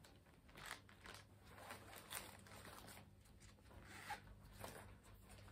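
Faint, brief rustles and soft clicks, a few seconds apart, as a nylon crossbody bag and its strap are handled and the strap is adjusted.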